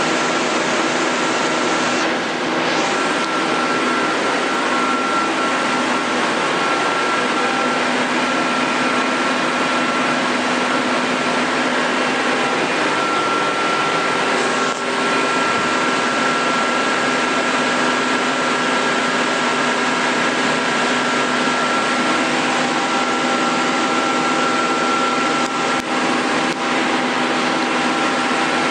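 Amera Seiki T415/1500 CNC lathe running under power: a steady mechanical hum and hiss with a high, even whine.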